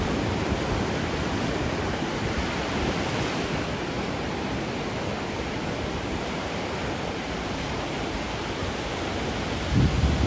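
Sea waves washing onto the shore, a steady rushing surf, with a brief low thump near the end.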